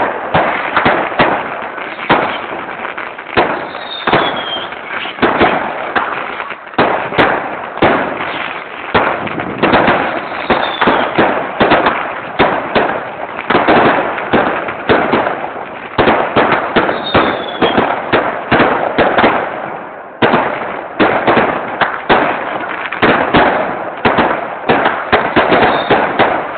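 Fireworks display: a rapid, continuous run of aerial shell bangs and crackles, with a few short falling whistles among them and a brief lull about twenty seconds in.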